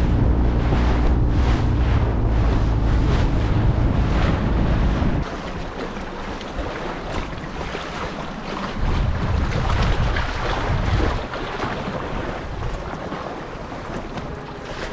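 A 20 hp outboard motor running steadily under wind buffeting the microphone and water rushing past the hull. About five seconds in, the engine tone stops abruptly, leaving wind and water splashing.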